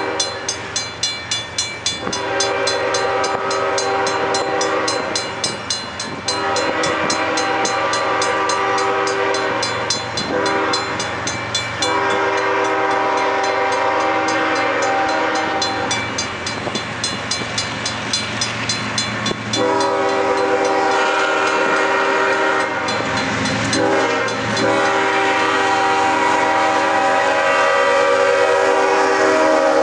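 Freight diesel locomotive's air horn sounding for a grade crossing: several long blasts with short breaks, then held without a break from about two-thirds of the way in as the train gets louder and nearer, over the low running of the diesel engines.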